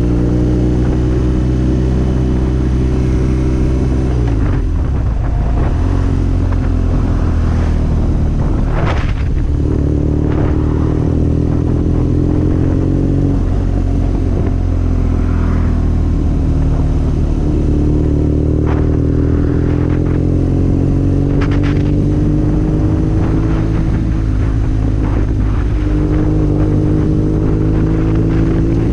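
BMW R nine T's boxer twin running through an Akrapovic full exhaust while cruising. The engine pitch slowly climbs and drops back several times, with a dip about four seconds in.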